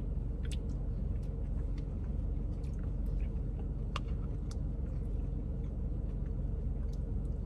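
A plastic spoon clicking and scraping now and then in a cup of thick frozen custard while digging for cookie pieces, over a steady low rumble with a faint hum.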